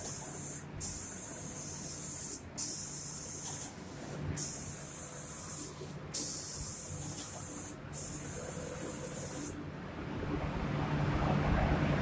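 Automatic spray-painting machine's spray gun hissing in repeated passes of about one and a half seconds, cutting off briefly between each. The spray stops about nine and a half seconds in, leaving a lower, steady machine hum.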